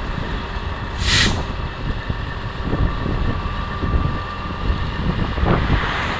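Steady wind and road rumble behind a semi tractor, with a short, sharp hiss of air from the truck's air brakes about a second in. Just before the end a car passes the other way with a brief whoosh.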